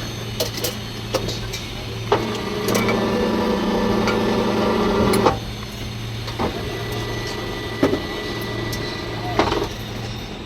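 Electric rebar stirrup (ring) bending machine working 8 mm steel bar: a steady motor hum, with a louder, fuller running sound from about two to five seconds in as it works, and sharp clacks scattered through.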